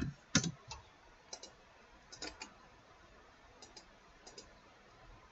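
Computer mouse buttons clicking faintly, in quick pairs and short runs about once a second, as lines are picked for trimming in a CAD drawing.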